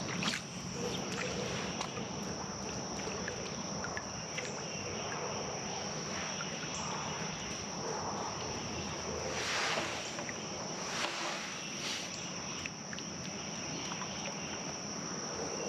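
Steady ambience on the water from a small fishing boat: a constant high-pitched whine over a low steady hum, with a few scattered light knocks and splashy noises.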